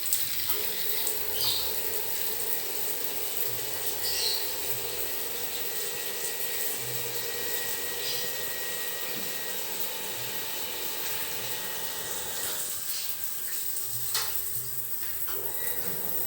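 Water running steadily from a tap, a constant rushing hiss with a few faint clicks over it.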